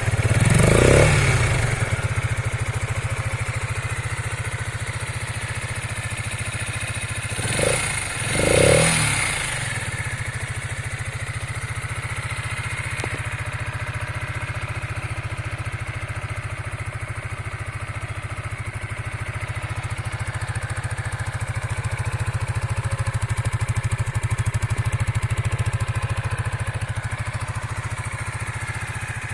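Keeway K-Light 125's air-cooled single-cylinder engine idling steadily, with a short throttle blip about a second in and two quick blips around eight seconds in.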